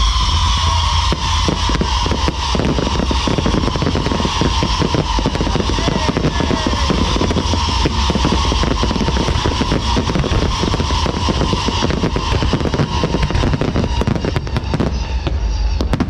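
Fireworks going off: a dense, rapid crackle of firecrackers under one long whistle that slowly falls in pitch and fades near the end.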